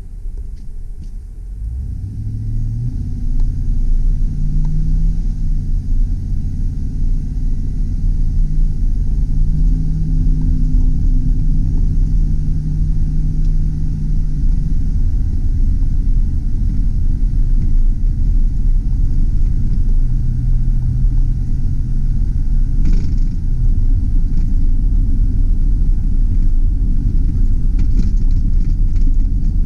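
A 2003 GMC Sierra 2500HD's 6.0-litre V8 heard from inside the cab, pulling away and then cruising. The engine note rises and grows louder about two seconds in, then holds steady over heavy road and tyre rumble. There is a single sharp knock about 23 seconds in and a few light clicks near the end.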